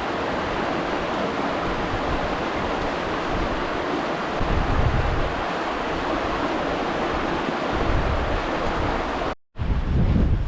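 Fast-flowing stream rushing steadily, with wind gusting on the microphone twice as a low rumble. The sound drops out for a split second near the end.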